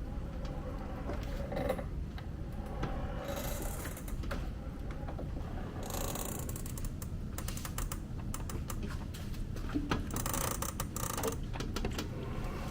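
Irregular mechanical clicking and rattling over a steady low rumble, with thicker clusters of clatter about six seconds in and again around ten seconds in.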